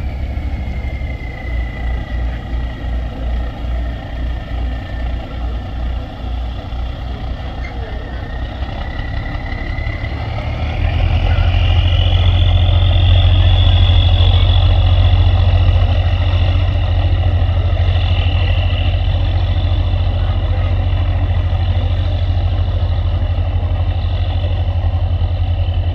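Catamaran passenger ferry's engines running as it pulls away, a throbbing low drone with a whine above it. About eleven seconds in the engines throttle up: the drone turns louder and steadier and the whine rises in pitch.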